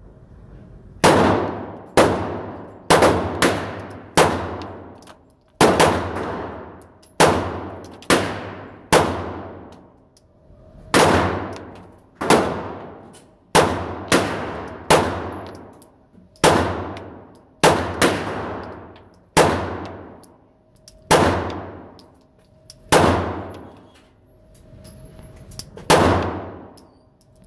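Glock 19 9mm pistol firing steel-cased ammunition: about twenty single shots, mostly a second or so apart with a couple of short pauses. Each shot rings off in the echo of an indoor range.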